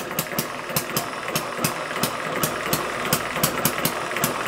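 Small Chinese model hit-and-miss engine running under load, driving a belt-driven dynamo: a steady run of sharp ticks, about four to five a second, over a constant whir.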